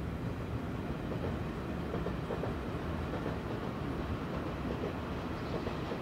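Electric commuter train running along a railway bridge, a steady rumble of wheels on the track.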